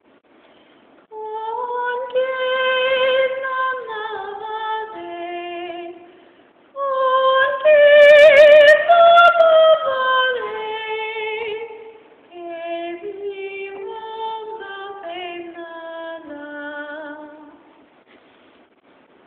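A woman singing a Spanish classical song solo, with no accompaniment heard: three phrases, the middle one loudest and highest with a wide vibrato, the last stepping down in pitch and ending near the end.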